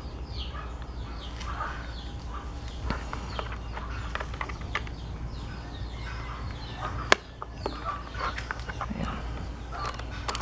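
Birds clucking and chirping in the background, with a single sharp click about seven seconds in. Near the end comes a quick run of sharp clicks: the keys of a mechanical keyboard being pressed.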